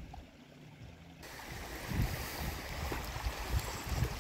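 Wind blowing across the microphone, starting suddenly about a second in, with uneven low rumbles and a few low thumps.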